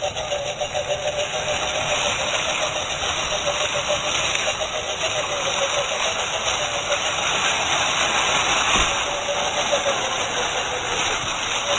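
Electric motor of a radio-controlled scale crawler, a 550-size brushed motor, whining steadily with slight rises and falls in pitch as the truck crawls, while its tyres crunch and rustle through dry fallen leaves.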